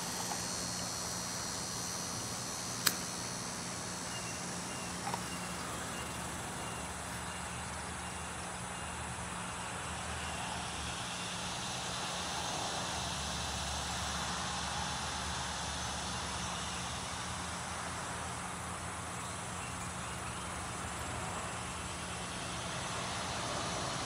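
Outdoor garden ambience: a steady hiss with a low steady hum and faint insect chirping. A single sharp click about three seconds in.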